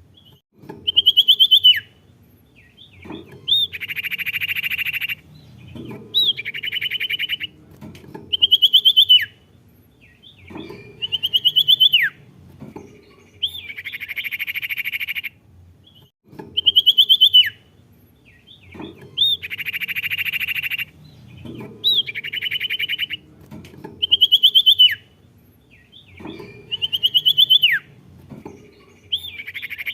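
Recorded song of a sirtu bird, played on a loop: a rapid buzzy trill alternating with a run of sharp whistled notes, the last of which sweeps steeply down. The phrase pair repeats about every two and a half seconds.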